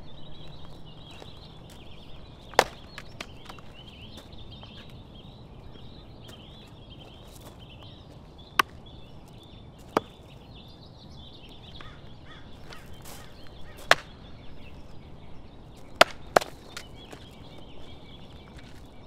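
Axe splitting firewood on a chopping block: six sharp chopping cracks spread apart, the last two in quick succession near the end.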